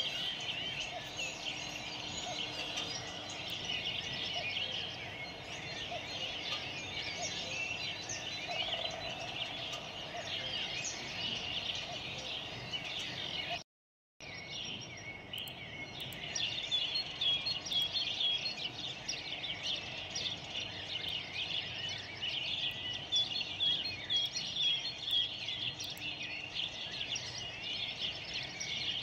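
Many small birds chirping and twittering together in a dense, continuous chorus. The sound cuts out completely for about half a second midway.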